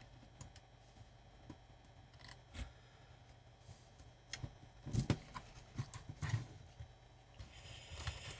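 Scattered small clicks and knocks of dial cord being wound around a transistor radio's tuning pulley by hand, with a busier patch of handling knocks about five to six and a half seconds in, over a faint steady low hum.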